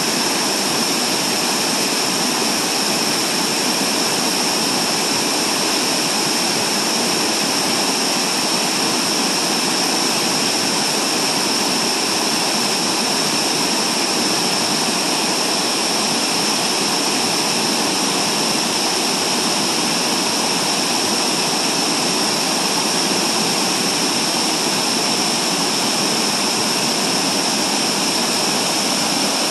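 Steady rushing of whitewater: a creek pouring over low rock ledges, with a waterfall falling behind it.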